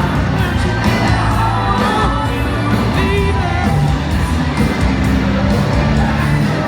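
Pop music with a singing voice, loud and steady.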